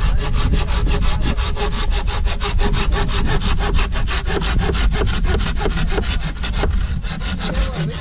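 A curved hand pruning saw cutting through a green bamboo stalk in quick, even back-and-forth strokes. The sawing stops right at the end.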